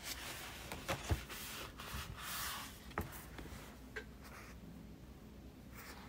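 Paper rustling with a few light knocks from handling, typical of a page being turned.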